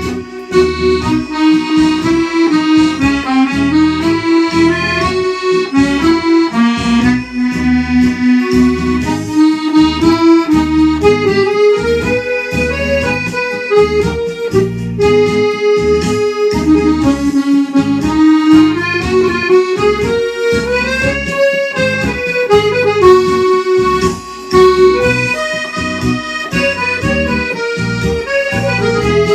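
Accordion playing a tune: a melody on the treble side over steady pulsing bass notes and chords.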